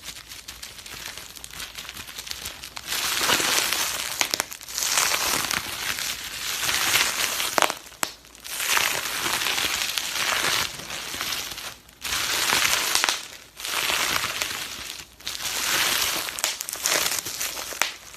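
Bubble wrap being squeezed and twisted by hand, its air bubbles popping in dense crackling runs. The runs last a second or two each, with short pauses between them.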